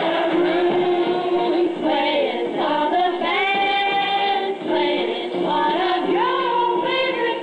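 Women's voices singing together in a stage production number, with band accompaniment. The notes are held and glide between pitches.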